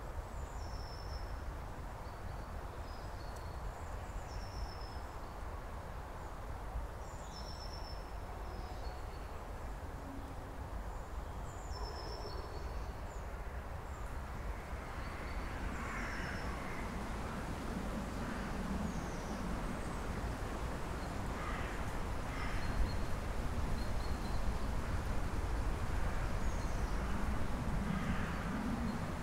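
Winter woodland ambience: a low steady rumble with small birds giving short, high chirps that fall in pitch, repeated every second or two. In the second half the background grows a little louder, with several louder, noisy rushes that come and go.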